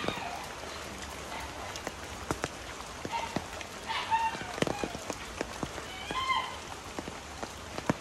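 Raindrops tapping irregularly on an umbrella over a steady hiss of rain. A few short pitched calls sound near the start, about four seconds in and about six seconds in.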